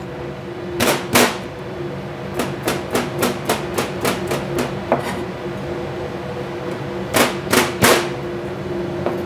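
Chef's knife chopping garlic on a plastic cutting board. Two chops come first, then a quick run at about four chops a second, then three louder chops near the end.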